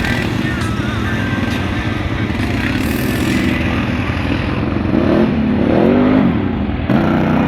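Engine of an off-road vehicle running, revved up and down a few times about five seconds in.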